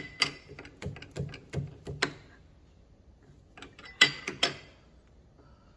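Metal clicks and clanks of a wrench working the clamp screws of a lathe's quick-change toolpost while a cutting tool is set. A quick run of sharp clicks with a faint ring comes first, then a short pause, then a few louder clanks about four seconds in.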